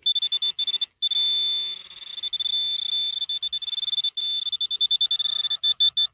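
Garrett handheld pinpointer sounding a high beeping tone chopped into rapid pulses, with a short break about a second in and choppier pulsing near the end. The tone signals metal close to the probe's tip.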